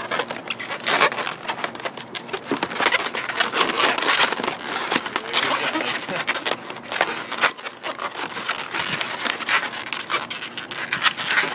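Latex modelling balloons rubbing and squeaking against each other as they are twisted, wrapped and pinch-twisted by hand: a dense run of irregular squeaks and creaks.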